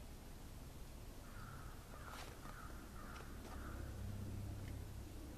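A crow cawing: a quick run of about four calls in a row, over a low steady rumble.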